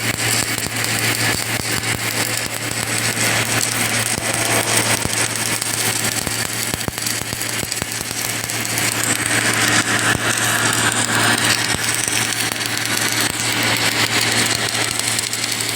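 Automatic submerged arc welding machine running on a pipe: a steady low hum under a continuous hiss with fine crackling.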